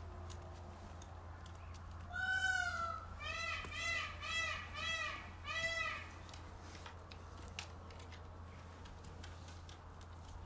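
North American porcupine whining: six high, pitched calls that each rise and fall. One longer call comes about two seconds in, then five shorter ones in quick succession.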